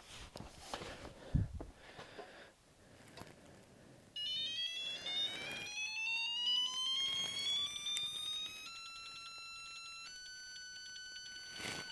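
CDI digital torque tester sounding an electronic tone that rises steadily in pitch as the beam torque wrench is pulled up toward the 150 ft-lb target. It then switches to a rapidly pulsing tone and finally to a steady, higher tone as the reading passes the target. Before the tone begins there are a few handling knocks and a dull thump about a second and a half in.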